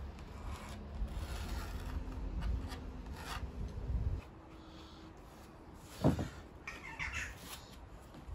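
A pencil rubbing across a sheet of fibreboard as a line is drawn along a wooden straightedge. A low rumble stops suddenly about four seconds in, and a single knock comes about six seconds in.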